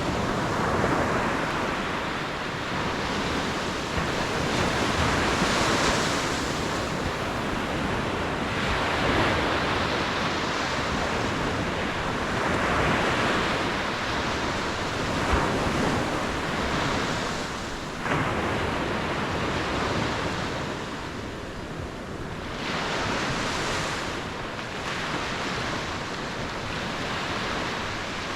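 Ocean waves breaking and washing on the shore in repeated swells every few seconds, with wind noise on the microphone.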